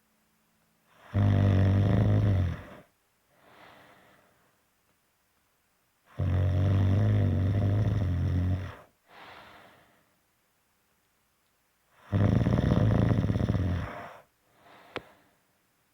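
Loud snoring: three long snores about five seconds apart, each followed by a quieter breath out. A single sharp click near the end.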